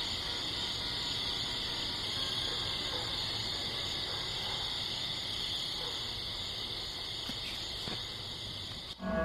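Steady, high-pitched chorus of insects, unbroken until it cuts off suddenly near the end.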